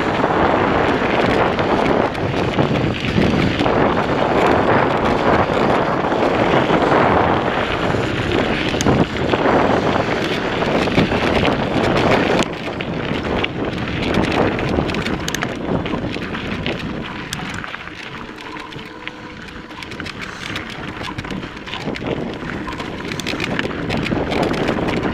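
Wind buffeting the microphone of a mountain bike's handlebar camera while the bike rolls along a dirt trail, with scattered clicks and rattles from the bike over rough ground. The noise eases for a few seconds past the middle, then builds again.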